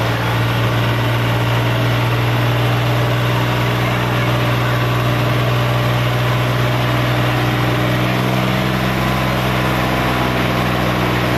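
John Deere 55 hp tractor's diesel engine running steadily at low revs, a deep even drone with no rise or fall.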